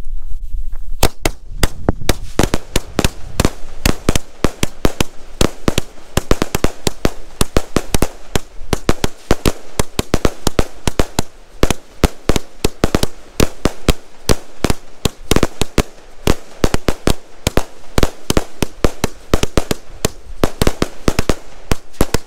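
An 81-shot Astroboy Fireworks Dempsey Roll cake firing in full: a fast, dense run of bangs and pops, shot after shot with hardly a gap. It starts about a second in.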